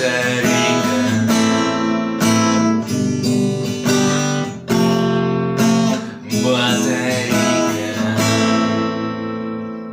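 Acoustic guitar strumming chords, ending on a final chord that rings out and slowly fades near the end.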